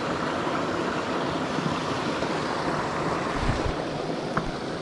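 Small mountain stream rushing and splashing over rocks and a little cascade, a steady running-water sound. A brief low thump about three and a half seconds in.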